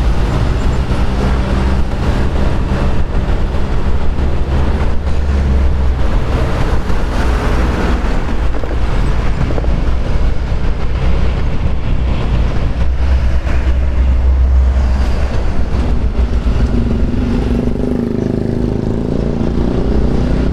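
Riding noise from an automatic scooter moving in heavy truck traffic: steady low rumble and wind noise on the handlebar-mounted microphone, with engines running close by. Near the end an engine note rises in pitch.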